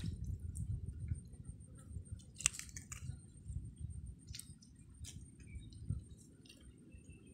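Hands gutting a freshly caught tilapia on a wooden board, pulling out its gills and innards: scattered small clicks and scrapes, a few sharper ticks, over a low rumble.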